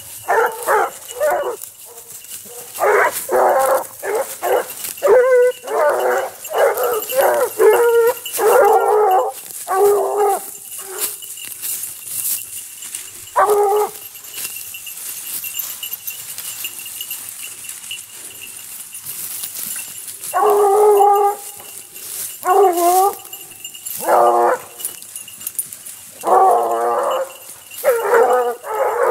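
A pack of Basset Bleu de Gascogne hounds giving tongue, the typical baying of scent hounds working a line. Several voices bay in bouts through roughly the first half, fall quiet for several seconds, then take up again near the end.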